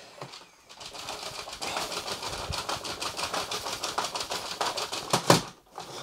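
Loose grain rattling inside a switched-off ROIDMI X30 Pro cordless stick vacuum as it is shaken, a fast, even clatter of many small clicks a second, with a louder knock about five seconds in. The debris stays in the vacuum, held back by its one-way valves.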